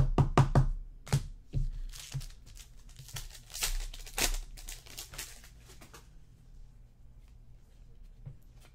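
Trading cards being handled and slid through the hands: a run of quick flicks and clicks, then several seconds of rustling and crinkling of card stock and wrapper.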